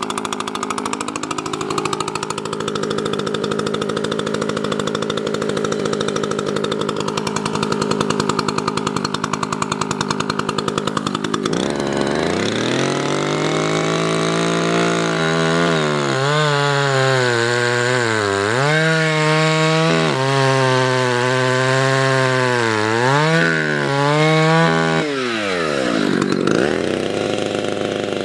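Husqvarna L65 65cc two-stroke chainsaw idling, then revving up about twelve seconds in and cutting into a sweet gum trunk, its pitch dipping and recovering again and again as the chain bogs in the wood. Near the end it drops back toward idle, then revs up once more.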